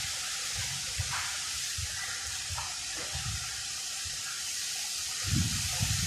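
Wind blowing through palm trees ahead of a storm: a steady rushing hiss, with gusts buffeting the microphone in low thumps that grow stronger near the end.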